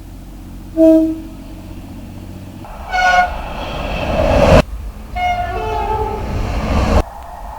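Two-tone train horns sounding in short blasts across several spliced recordings that cut off abruptly: a short low blast about a second in, a high blast near three seconds with train running noise building up, then a high-then-low two-tone blast over the rumble of a passing train.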